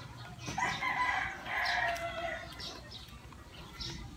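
A rooster crowing once, a long call of about two seconds that starts about half a second in and falls in pitch at the end, with small birds chirping around it.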